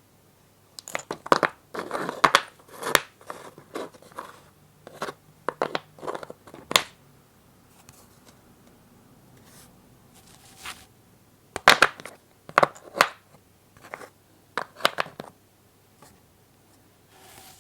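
Hands handling small wooden toy pieces: clusters of sharp clicks, taps and short scrapes, with a quiet pause of a few seconds in the middle.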